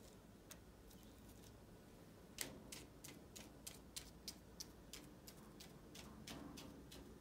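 Faint, quick tapping as a paint-loaded pom pom in a wooden clothespin is dabbed again and again onto paper on a table, about three taps a second, starting about two and a half seconds in.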